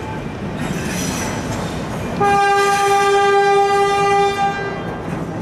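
Diesel shunting locomotive sounding its horn: one steady single-note blast lasting about two and a half seconds, starting about two seconds in, over the running noise of a train on the rails.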